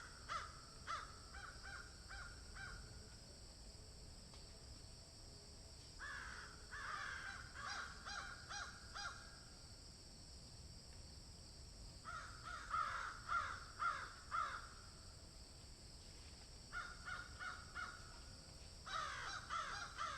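Crows cawing in bouts of several quick, harsh caws, about five bouts with pauses between them, over a steady faint background hiss.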